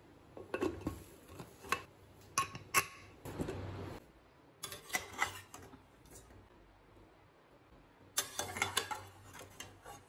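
Irregular metal clinks, knocks and scrapes of a slotted metal ladle against a pressure cooker pan as boiled taro roots (arbi) are stirred and lifted in the water, coming in a few short clusters.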